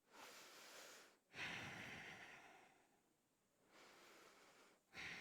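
A woman breathing slowly and audibly close to the microphone during a held yoga stretch: a few long, soft breaths in and out, the one starting about a second in the strongest.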